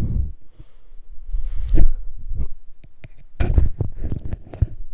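Plastic parts of a Shark Lift-Away vacuum cleaner being handled and fitted together: a series of knocks and clicks. The loudest knock comes a little under two seconds in, and a cluster of handling noises follows past the middle.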